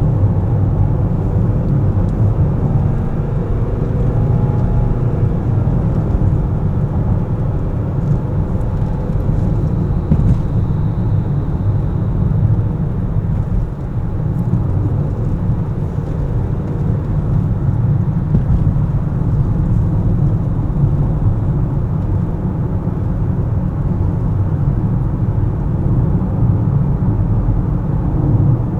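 Car driving along at steady speed: a continuous low rumble of road and engine noise, with a faint pitched engine note in the first few seconds.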